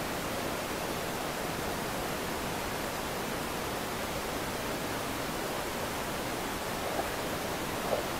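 Steady, even rushing hiss, with two faint ticks near the end.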